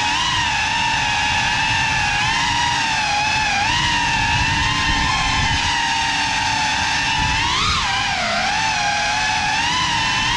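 Motors and propellers of a Cinelog 35 cinewhoop FPV drone on a 6S battery, flying. They give a steady, high whine whose pitch wavers up and down with the throttle over a low rumble of prop wash, with a sharper rise and dip near the end.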